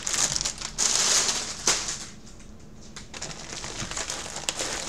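Clear plastic bags around football jerseys crinkling as they are handled. The crinkling is loudest in the first second or two, then drops to softer rustling with a few light clicks.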